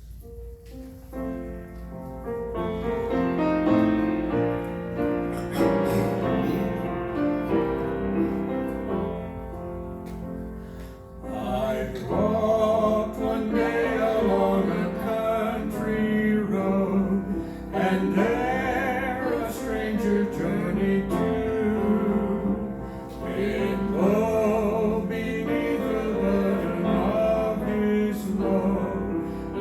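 Piano playing a slow passage, joined about eleven seconds in by a voice singing with vibrato over the piano.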